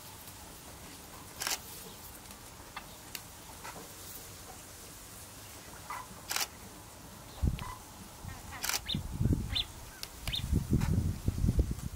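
Quiet outdoor background with scattered sharp clicks and a few short high chirps, then irregular low thumps and rumbling in the last few seconds, the loudest part.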